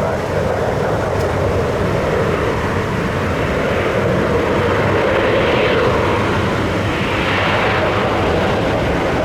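Jet airliner engines making a steady, loud rush that swells slightly midway.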